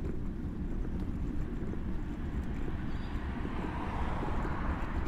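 Steady low rumble of road noise carried through the microphone's suspension mount while riding along a street, with a hiss that swells about three seconds in and fades near the end.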